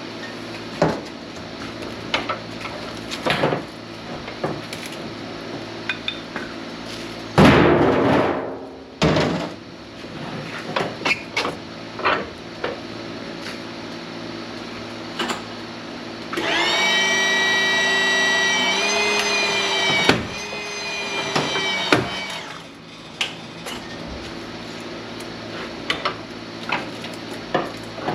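Scrap transformers being put through a machine: repeated sharp metal knocks and clanks over a steady low hum. A loud harsh noise comes about seven seconds in. Later a machine whine holds a steady pitch for about three and a half seconds, steps up near its end, then cuts off.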